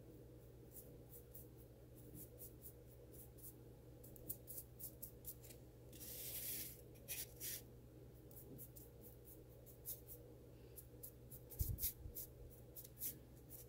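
Small flat paintbrush scrubbing brown weathering chalk onto the edge of an insulation-foam model road: faint, irregular scratchy strokes over a low steady hum.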